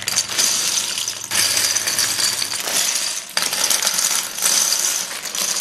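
Small plastic Lego-style bricks pouring out of torn-open plastic bags onto a heap of bricks: a dense, continuous clatter that dips briefly twice.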